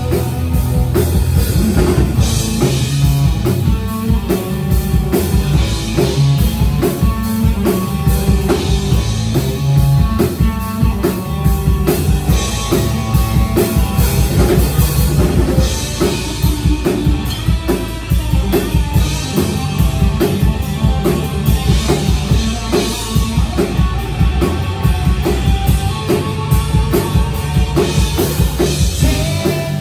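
Live rock-country band playing a stretch without vocals: a drum kit keeps a steady beat under electric guitar.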